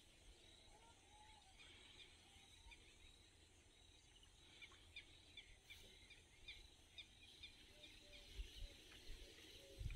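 Near silence with faint, scattered bird chirps, more of them in the second half, and a couple of soft low thumps near the end.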